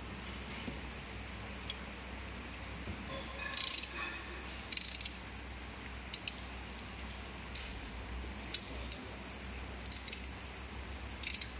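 Socket ratchet wrench clicking in short bursts every second or two as it is worked on a diesel engine during tappet (valve clearance) setting.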